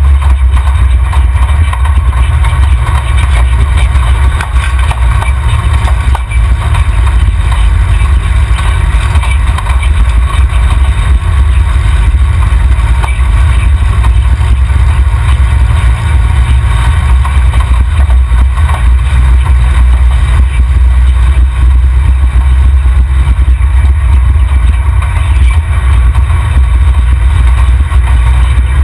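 Off-road 4x4's engine and drivetrain running as it drives over desert ground: a loud, steady low rumble, heard through a camera mounted under the chassis at the rear axle.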